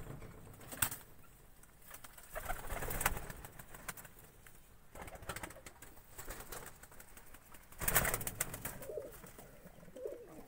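Domestic pigeons cooing softly in their nest boxes, mixed with rustling and clicks from handling, and a loud bump about eight seconds in.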